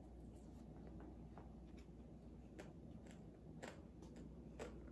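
Faint mouth-closed chewing of crispy air-fried pig's ear: a few sharp crunches, about one a second in the second half, over a low steady hum.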